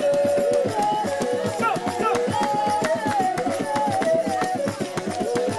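Baka polyphonic group singing: several voices weave overlapping melodic lines over fast, steady percussion.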